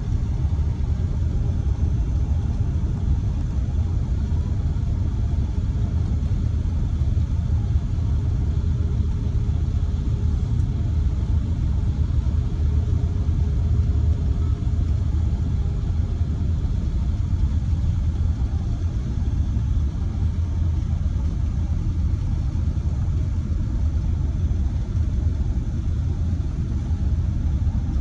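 Steady low rumble of road and engine noise inside a car cruising at motorway speed, tyres running on a wet road surface.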